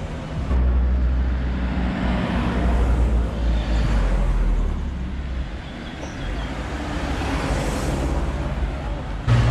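Car traffic on a road, with cars driving past close by. A deep rumble is heavy for the first few seconds, eases off around the middle, then builds again.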